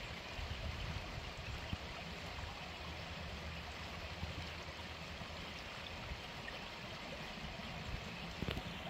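Shallow creek water running over rocks in a steady babble, over a low steady rumble.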